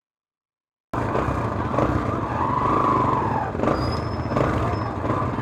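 Silent for about the first second, then street noise: vehicle engines running with a steady low rumble, amid the noise of a crowd.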